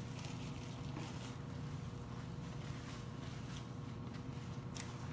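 Soft chewing and mouth sounds of someone eating a mouthful of food, with a few faint clicks, over a steady low hum.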